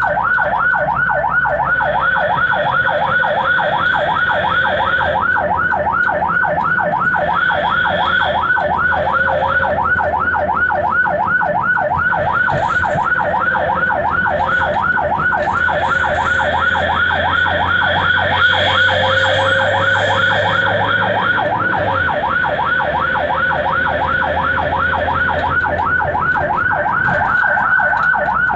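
Ambulance electronic siren in fast yelp mode, heard from inside the cab: a rapid rising-and-falling wail repeating about three times a second without a break, over the low hum of the engine.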